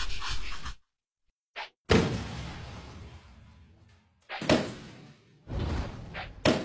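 A string of separate impact sound effects for an animation, each a sudden hit that fades away. The biggest comes about two seconds in with a long fading tail, and shorter hits follow near the end.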